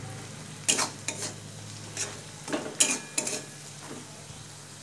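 Metal spatula scraping and stirring chopped onions, garlic, ginger and green chillies frying in mustard oil in a metal kadai, over a low sizzle. Several quick scrapes against the pan, the stirring stopping about three and a half seconds in.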